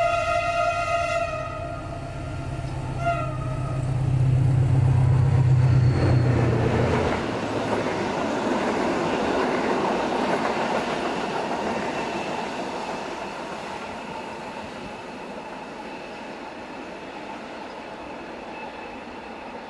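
SU42 diesel locomotive sounds its horn, a blast that ends about a second in and a short second toot about three seconds in, then passes close by with its engine drone loudest around four to seven seconds in. The double-deck passenger coaches follow, their wheels rolling on the rails with a noise that slowly fades away.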